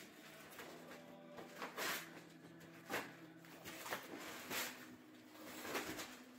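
Christmas wrapping paper being torn and crumpled by hand, in several short rustling bursts.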